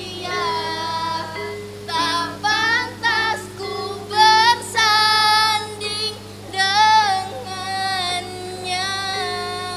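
A girl singing a slow solo melody, with vibrato on long held notes, over a steady accompaniment.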